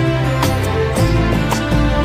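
Background music with a steady beat: held melodic notes over regular percussion strokes about twice a second.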